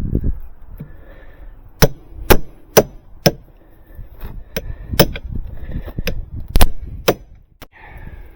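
Steel hammer blows on a wooden deck stair tread, about a dozen sharp knocks, the first four in a quick run. One hammer strikes another wedged between the tread and the stringer, forcing the nailed tread loose in place of a pry bar.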